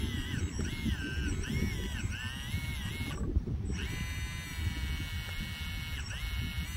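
Whine of a 1/16-scale RC excavator's electric hydraulic pump, its pitch dipping and recovering again and again as the boom and bucket work. It cuts out for about half a second just after three seconds in and dips briefly near the end. An irregular low rumble runs underneath.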